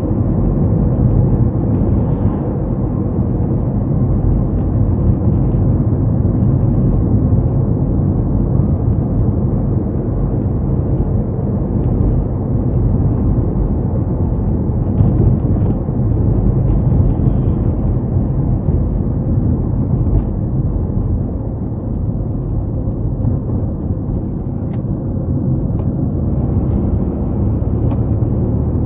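A car driving along at steady speed: a continuous low rumble of engine and tyre road noise, with a few faint light ticks now and then.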